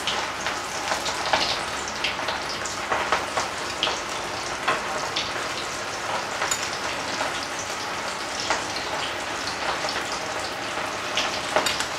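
Cornflour-coated chickpeas deep-frying in hot oil in a wok: a steady sizzle with frequent sharp crackling pops as more spoonfuls are dropped in.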